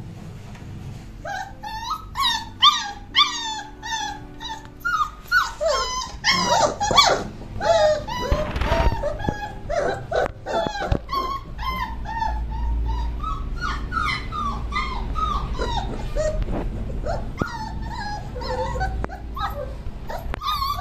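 A litter of month-old Doberman puppies crying and whining over and over, many short high cries rising and falling in pitch and overlapping one another, thickest through the middle. They are calling to be let outside.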